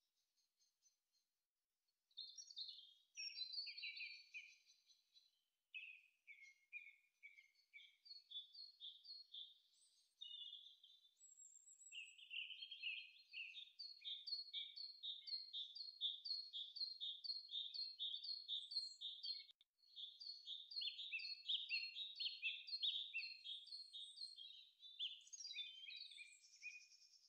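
Faint songbirds singing: overlapping runs of quick repeated chirps and trills, starting about two seconds in.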